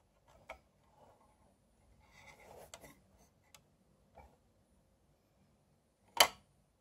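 Hinged plastic hatch lids on a 1:9 scale Kettenkrad model being handled: scattered light clicks and a short rustle, then one sharp, loud click about six seconds in as a lid snaps.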